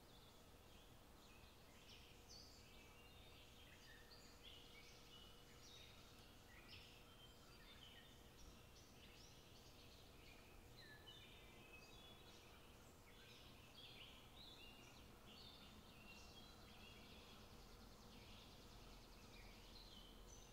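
Faint outdoor ambience of many birds chirping and twittering, over a low steady hiss.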